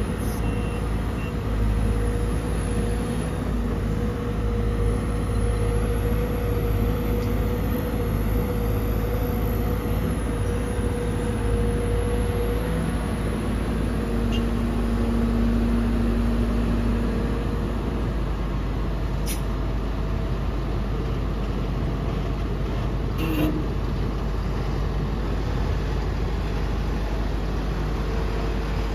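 Sumitomo SH210-6 hydraulic excavator working a load into a dump truck: a steady diesel drone with a thin whine over it through the first half, which drops lower for a few seconds in the middle. Two short sharp knocks come later.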